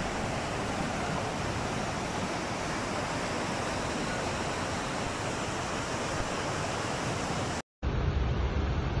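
Steady rushing roar of fast-flowing floodwater pouring down a street. Near the end it cuts off briefly and gives way to a duller, lower rush of water.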